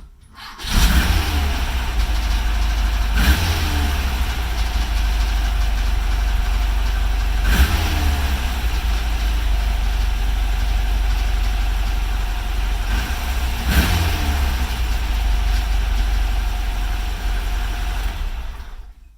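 A car engine catches about a second in and runs at a steady idle, with four brief revs that fall back to idle, then is switched off shortly before the end.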